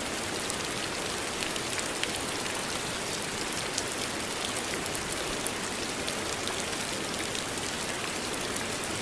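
Steady rain falling, an even hiss dotted with many small drop ticks on a surface.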